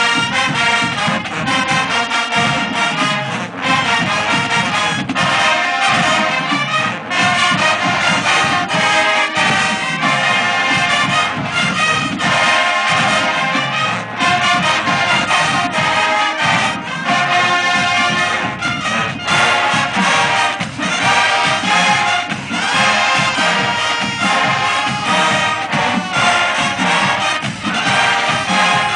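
Marching band brass playing an upbeat tune with a steady beat.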